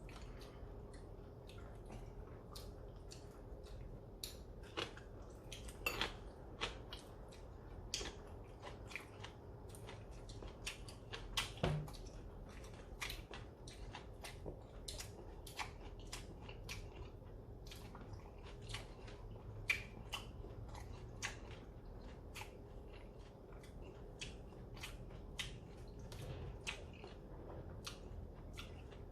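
Close-up eating sounds: chewing and biting, with frequent irregular sharp clicks and taps. A faint steady hum lies underneath.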